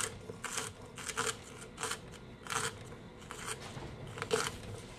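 Knife cutting through celery stalks on a wooden cutting board: about seven separate crisp crunching cuts, unhurried, roughly one every half-second to second.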